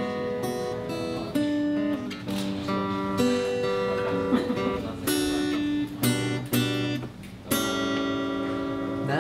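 Solo acoustic guitar played fingerstyle: picked notes and struck chords, with a short lull about seven seconds in before a full chord rings out.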